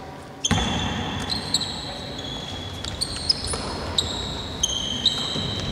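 Basketball shoes squeaking sharply on a hardwood court, with a ball bouncing, in a large sports hall.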